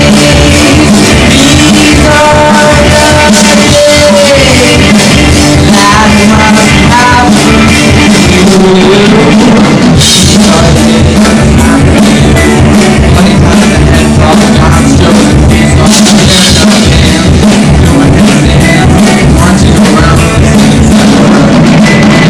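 Live rock band playing, with drum kit, guitar and singing, recorded very loud and distorted, so the mix is harsh and overloaded.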